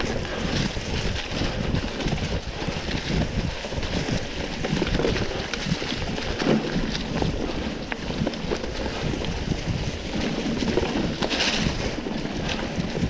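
Wind buffeting the microphone of a moving rider, with continuous uneven rumbling and rattling from the ride over rough trail.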